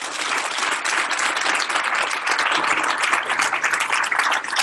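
Audience applauding, a large room of people clapping steadily at the close of a talk.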